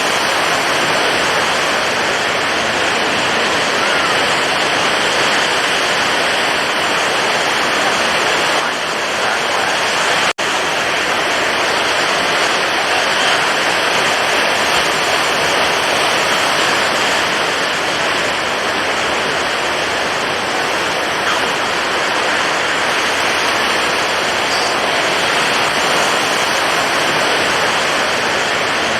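Stormy ocean surf: high waves giving a loud, continuous rush of water that cuts out for an instant about ten seconds in.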